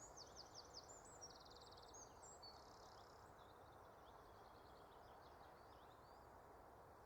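Faint small bird singing in the distance, rapid high chirps and trills, growing fainter after about three seconds and dying away before the end, over a low steady hiss of open-air quiet.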